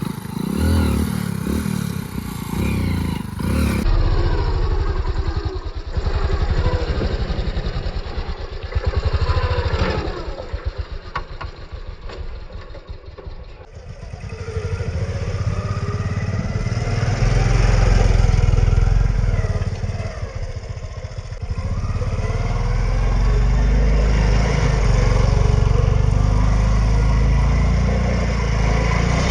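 Hero Splendor motorcycle's small single-cylinder engine revving up and down as it is ridden off-road, the pitch rising and falling repeatedly. The sound changes abruptly twice where separate clips are joined.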